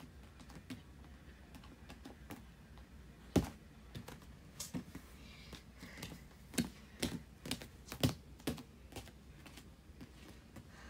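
Bare feet and hands knocking and padding on a carpeted floor during a gymnastics walkover and the steps that follow: irregular knocks, one strong one about three and a half seconds in and a cluster of them between about six and a half and nine seconds.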